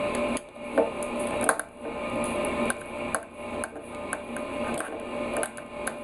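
Irregular small clicks and scrapes of hands working on the metal housing of a small electric air-horn compressor while taking it apart, over a faint steady hum.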